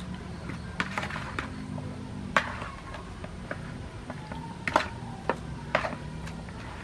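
Knife chopping on a wooden cutting board: about eight sharp, irregular knocks over a steady low rumble.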